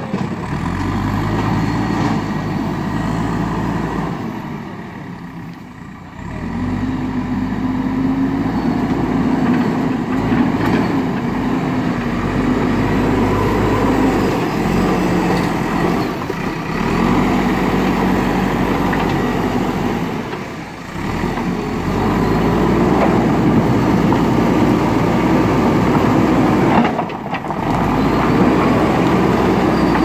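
JCB backhoe loader's diesel engine running under load while its front bucket scoops and carries stones. The engine note steps up and down with the throttle, and the sound dips briefly a few times.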